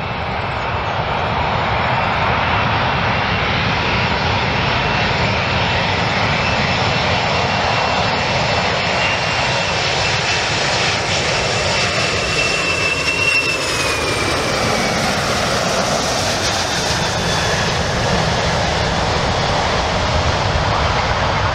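Boeing 747-400 airliner on final approach, its four turbofan engines making a steady, loud jet rush with a high whine. About two-thirds of the way in, the whine drops in pitch as the plane passes.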